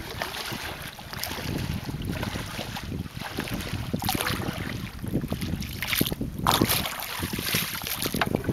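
Wind buffeting the microphone over water sloshing and splashing against a small boat as it moves through shallow water, in uneven gusts with a louder surge a little past the middle.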